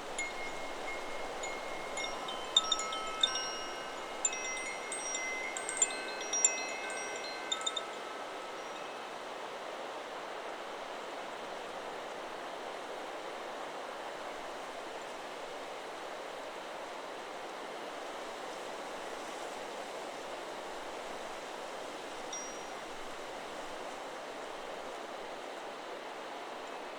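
Chakra Chimes 'Solar Plexus' wind chime ringing in the breeze: a flurry of clear tones and strikes over the first eight seconds or so, then dying away, with one faint ping near the end. Steady wind noise runs beneath throughout.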